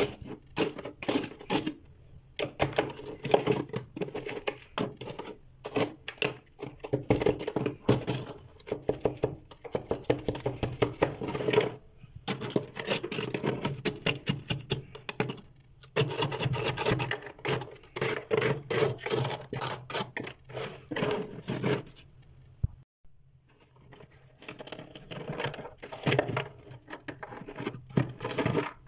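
Close-up crunching of crispy freezer frost being chewed: rapid crackling in bursts, with brief pauses and a longer one about two-thirds of the way through.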